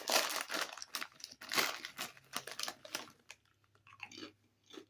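Crunching bites and chewing of a paprika-flavoured chip, dense and loud for the first two seconds, then thinning to a few soft chews.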